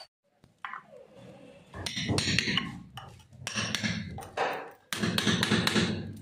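Several short bursts of metallic clinks and knocks as metal parts are handled and tapped against a steel frame.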